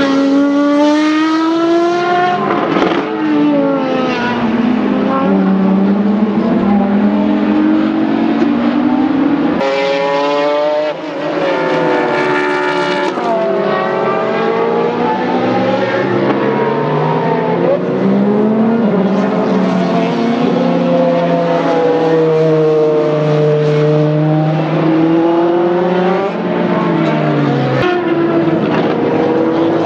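Several racing sports cars' engines passing one after another through a corner, overlapping throughout. Their pitches rise and fall as the cars slow into the bend and accelerate out, and one car accelerates hard past about ten seconds in.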